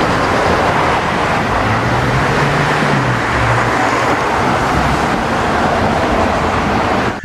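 Car driving: a steady rush of engine and road noise, with a faint low engine hum through the middle few seconds.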